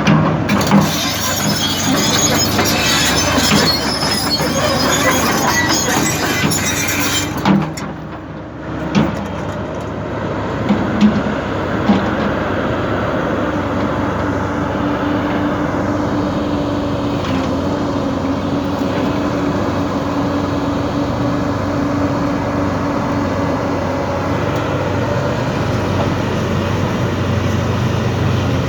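Hyundai excavator at work: a harsh, hissing, grinding noise for the first seven seconds or so, then several sharp knocks. After that the machine runs steadily with a droning tone that holds for the rest of the time.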